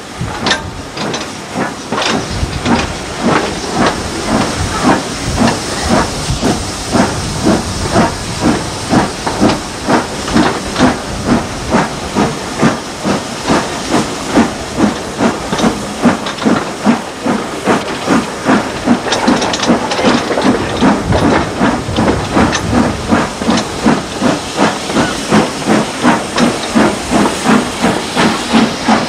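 Steam locomotive working hard, the thrash of its exhaust beats coming in a steady rhythm of about two a second over a constant hiss of steam, heard from a carriage window just behind the tender.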